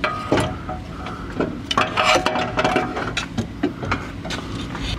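Irregular metal clinks and knocks from hand tools and parts against the car's underbody hardware, some ringing briefly.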